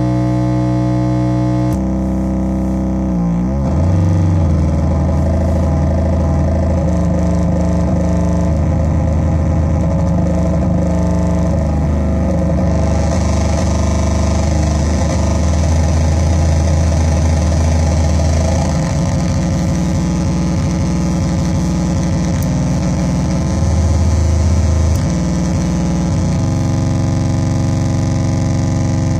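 Metsään Dirty Drone Anarchy synth, its three triangle-wave oscillators modulating one another, putting out a loud distorted buzzing drone. The pitch and texture shift in steps as it is played, with a quick pitch sweep about three seconds in and a hiss joining about halfway through.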